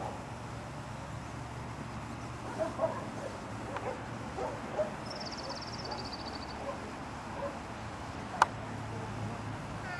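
Open-air field ambience with a few faint, short dog barks, a high rapid trill from about five seconds in, and a single sharp click a little after eight seconds.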